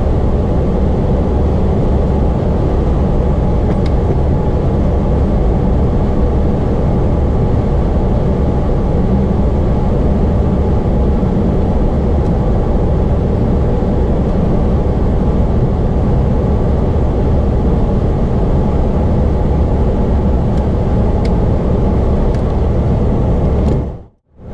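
Steady low rumble and rush of Boeing 777-200ER flight-deck noise with the aircraft's systems running during pushback. It drops out briefly near the end.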